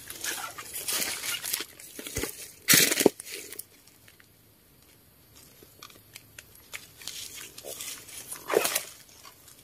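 Dry forest leaf litter rustling and crackling, disturbed while wild mushrooms are being picked. The crackles come in irregular bursts through the first three seconds, loudest at about three seconds in, then die down before another rustle near the end.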